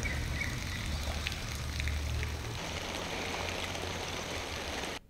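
Steady open-air ambience: a low wind rumble on the microphone under a faint hiss, with a few faint ticks. It cuts off abruptly near the end.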